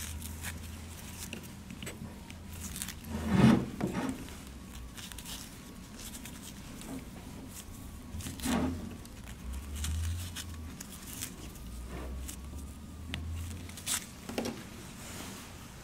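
Handling sounds of the plastic sensor sockets and plugs on an AP-7000 water-quality probe being twisted tight with a fabric lanyard: a few soft knocks and scrapes, the loudest a few seconds in and again about midway.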